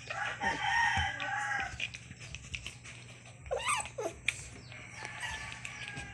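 A rooster crowing once, a held cry of about a second and a half. A couple of short cries that bend up and down in pitch follow about three and a half seconds in.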